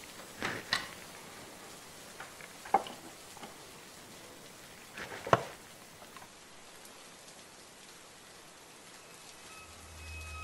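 Steady rain-like hiss with a few sharp taps, the loudest about five seconds in; a low hum with faint steady tones comes in near the end.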